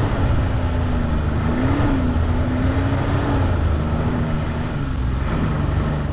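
Ski-Doo snowmobile engine running steadily under way, its pitch wavering a little, over a broad rush of track and wind noise.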